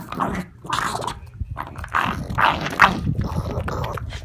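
A pug eating broccoli, with irregular short bursts of noisy breathing and chewing.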